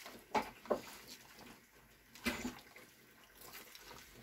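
Bare hand squishing chicken wings and sliced onion through a mayonnaise-and-ketchup marinade in a pot: a few short wet squelches, two close together about half a second in and another a little after two seconds.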